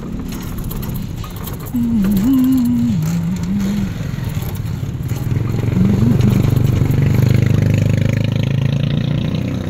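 Small motorcycle engine of a passenger tricycle running along, its sound growing fuller and louder about halfway through as it picks up speed. A short wavering hum-like tone rides over it for about two seconds near the start, and again briefly later.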